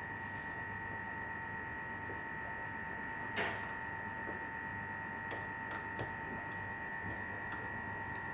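A few small sharp clicks and one short scrape, typical of lock-picking tools working the pins of a padlock. These sit over a steady electrical hum with a high whine.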